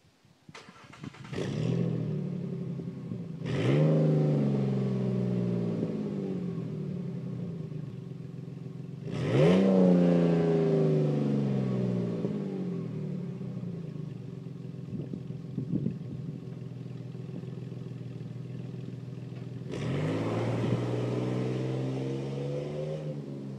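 Jeep Liberty KK's petrol V6 through a Gibson cat-back exhaust. It starts up and idles, is revved twice, each rev rising quickly and sinking slowly back to idle, then it pulls away under light throttle and fades as it drives off.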